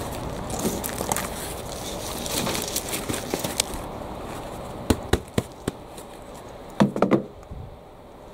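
Compost and leaves rustling as an elephant garlic plant is tipped out of a black plastic pot into a wheelbarrow. About five seconds in come a few sharp taps, and near the end a quick cluster of knocks, as the emptied plastic pot is knocked and handled.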